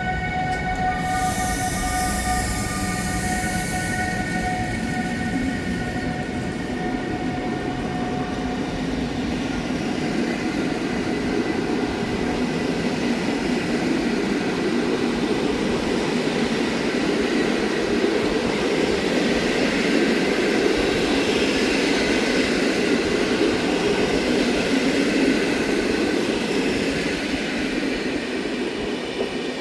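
A train running along the tracks, its wheel and rail noise building up over the first several seconds and then staying loud. Steady pitched tones sound at the start and fade out within the first few seconds.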